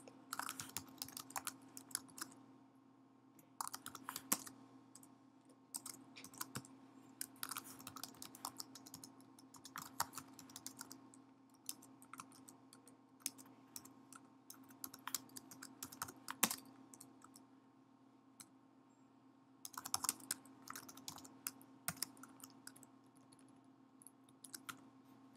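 Typing on a computer keyboard in irregular bursts of keystrokes, with a short pause about two-thirds of the way through, over a faint steady hum.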